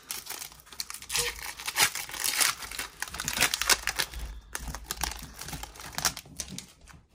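Foil wrapper of a hockey card hobby pack being torn open and crinkled in the hands: a steady run of sharp crackles.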